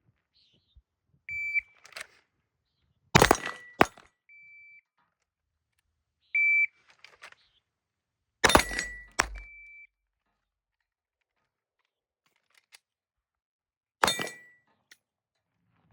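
Electronic shot timer beeps, and each beep is followed after about two seconds by pistol gunfire from Glocks. There are two shots close together about three seconds in, another pair about eight and a half seconds in, and a single shot near the end. Fainter short beeps come just after the shot strings.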